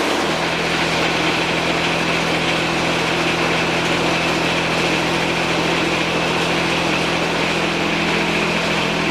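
John Deere 455's three-cylinder Yanmar diesel running steadily just after starting. It settles to an even pitch a moment in, held at a little throttle, with its valve lash freshly set.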